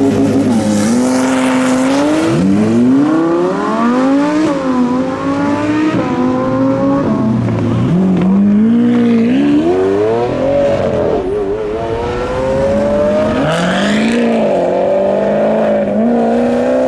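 Sports car engines, led by an Audi R8, accelerating hard away one after another. The engine note repeatedly climbs in pitch and dips back at each gear change.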